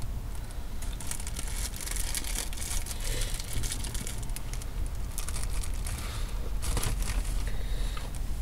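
Food wrapping crinkling and rustling in irregular bursts, handled while food is shared and eaten, over a low steady rumble.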